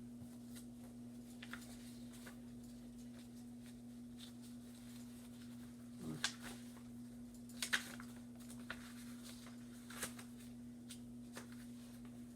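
Faint, occasional rustles and light taps of paper sheets being handled, over a steady low electrical hum.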